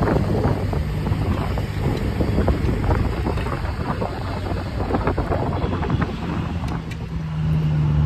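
Wind buffeting the microphone in irregular gusts and crackles over a steady low hum.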